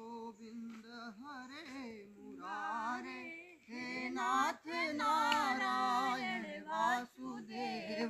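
Devotional bhajan music: a singer's melodic, ornamented voice with vibrato over a steady drone.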